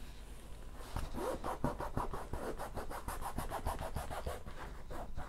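Hands rubbing and scratching quickly back and forth over a paper-covered diamond painting canvas. After a quieter first second the strokes come in a fast run of about five a second, to smooth out air trapped under the canvas.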